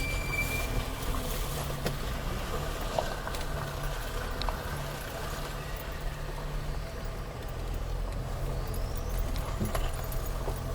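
Land Rover Freelander 2 engine running at low revs while the car crawls over rough off-road ground, heard from inside the cabin. The engine note steps up and down, with a few faint knocks and rattles.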